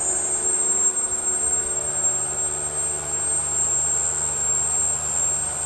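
Vacuum pump on a 400-litre vacuum mixer running steadily just after switch-on: an even mechanical hum with a high whine over it, pulling down vacuum in the mixing tank.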